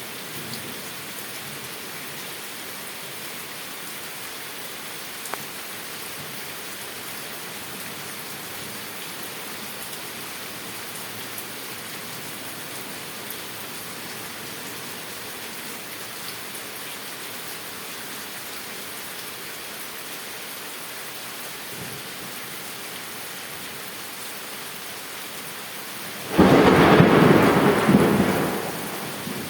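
Heavy rain falling steadily, then a sudden loud crack of thunder near the end that rumbles and fades over a couple of seconds.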